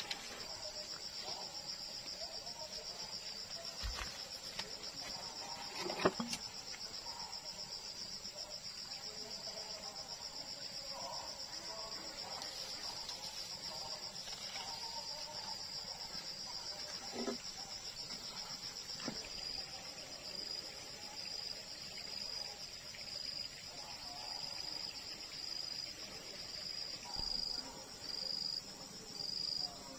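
Insects chirring in a steady high-pitched buzz that, about two-thirds of the way through, breaks into evenly spaced pulses about once a second. A few scattered knocks and clicks sound along with it.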